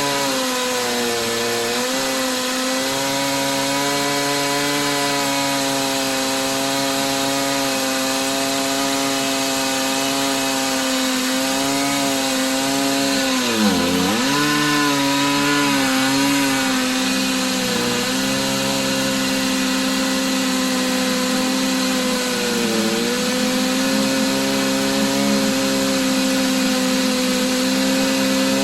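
Stihl MS880 two-stroke chainsaw on an Alaskan mill, running at full throttle as it rips along a green log with a 41-inch bar and ripping chain. The engine note holds steady under load but sags briefly a few times, most deeply about halfway through, as the cut bogs it down.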